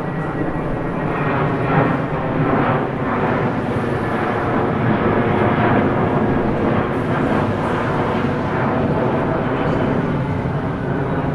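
Airplane engines running loudly and steadily, a dense rushing noise with faint engine tones running through it.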